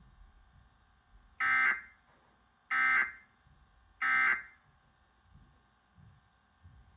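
Emergency Alert System end-of-message (EOM) signal: three short bursts of buzzy SAME digital data tones, about 1.3 s apart. They mark the end of the alert message.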